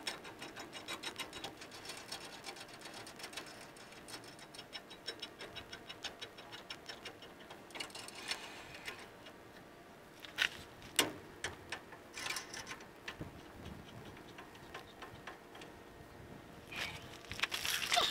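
Hand socket ratchet clicking in quick runs while working a bolt on a pickup's leaf spring mounting, with a few separate sharp metal clicks and knocks in between.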